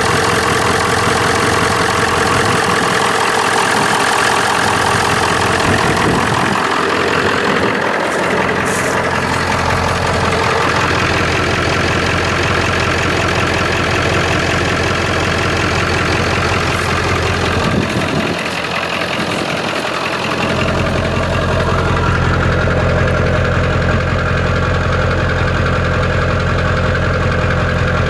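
1997 Ford F-350's 7.3-litre Powerstroke turbo-diesel V8 idling steadily, still warming up after a cold start.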